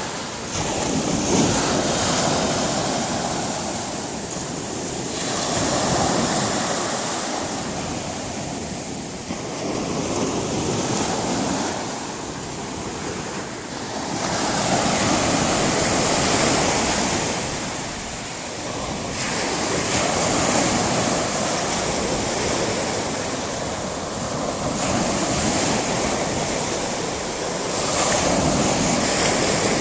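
Sea surf breaking on the shore, a wide rushing noise that swells and ebbs every four to five seconds as each wave comes in, under a strong wind.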